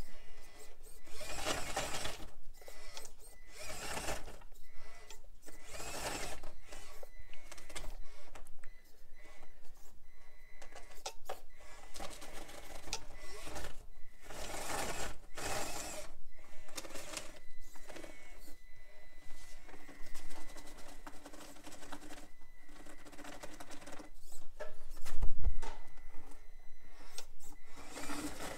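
Traxxas TRX4M RC crawler with its stock brushed motor and crawler gears climbing rock: the whine of the small motor and gearbox under irregular clicking and scraping from the tyres and chassis on the rock, with one louder knock near the end.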